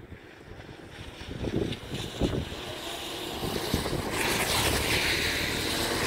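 Wind buffeting the microphone in a blustery mountain breeze, with a broad rushing noise swelling over the last two seconds.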